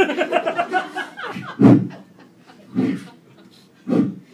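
A performer's mouth-made sound effect of a paper map being unfolded: a voiced rustling noise, then three short, sharp bursts at roughly one-second spacing, like the map's folds flapping open.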